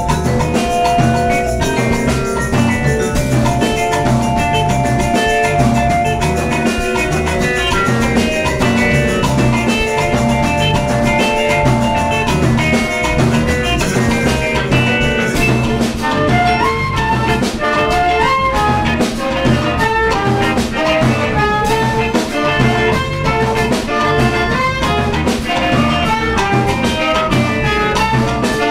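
Live band playing an instrumental passage: drum kit and bass under a melody of held notes, which gives way to quicker, shorter notes from about halfway through. Mallet percussion such as vibraphone rings through the mix.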